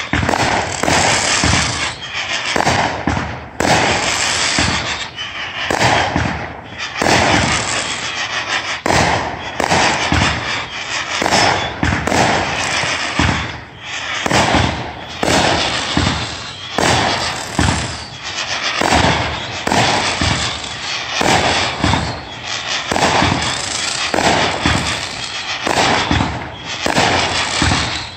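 A continuous barrage of fireworks going off, a rapid, unbroken run of bangs and crackles.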